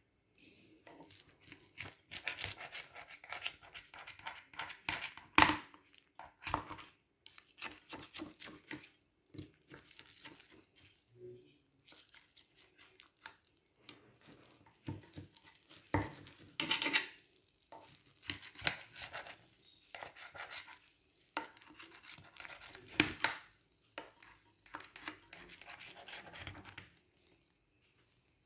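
Knife cutting through a baked lasagna in a ceramic baking dish. The hard-browned pasta top crackles and tears, and the blade scrapes and knocks against the dish in irregular strokes, with a few sharper knocks.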